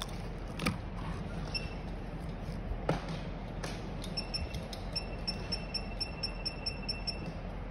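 A few sharp clicks and ticks as a phone screen and its tester board are handled on a rubber mat. Then, for about three seconds, a steady high electronic tone with quick beeps on top of it, about four a second, over a low steady hum.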